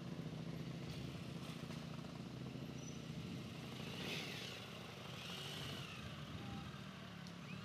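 Motorcycle engine idling steadily at an even pitch.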